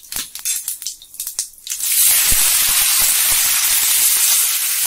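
Water poured into a pan of hot oil with a tempering of mustard seeds, curry leaves and green chillies: after a few crackles, a sudden loud hiss about two seconds in that holds steady as the water turns to steam.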